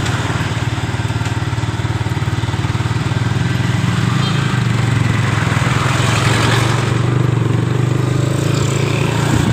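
Small motorcycle engine running steadily under way, with a low even drone.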